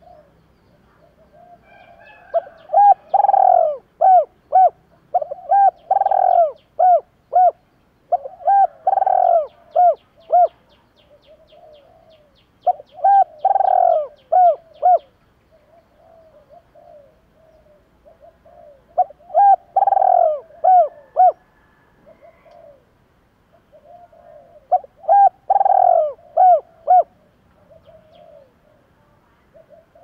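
Spotted dove cooing in five phrases, each a burred, rolling note followed by a string of short coos, a few seconds apart. This is the song keepers play as a decoy call to stir up other doves.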